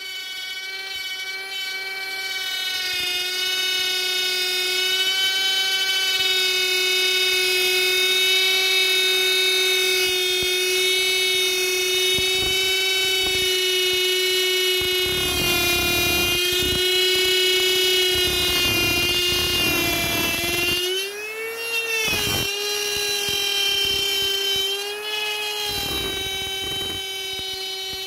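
Hand-held trim router running at full speed while cutting circular driver holes in a plywood baffle on a circle-cutting jig. It gives a steady high whine over rough cutting noise. The pitch jumps up and settles twice in the last third, as the load on the bit changes.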